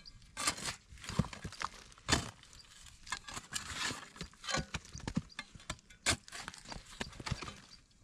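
A hoe striking and prying at hard, sun-dried cracked mud, with clods knocking together and crumbling. Irregular sharp knocks and gritty scrapes, the loudest about two seconds in and again about six seconds in.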